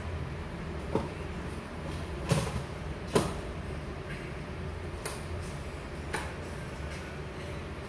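Several short sharp clicks and knocks, the loudest two in quick succession a couple of seconds in, over a steady low background rumble.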